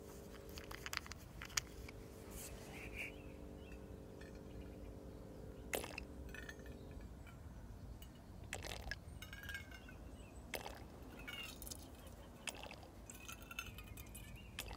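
Faint clicks and small taps as a plastic fuel bottle and a shallow metal tin burner are handled while methylated spirit is squeezed into the burner. A faint steady hum runs underneath and stops about seven seconds in.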